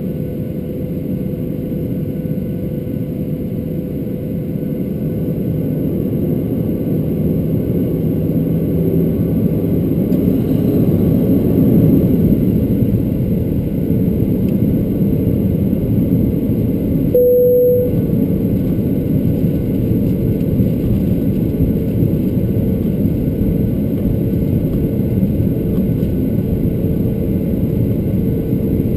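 Cabin noise of a Boeing 737-800 taxiing: the steady rumble of its CFM56 engines at low thrust and the rolling of the airframe, heard from a window seat over the wing. The rumble grows a little louder in the first half, and a brief single tone sounds about two-thirds of the way through.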